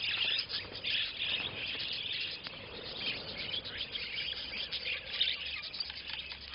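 A flock of budgerigars chattering and chirping continuously.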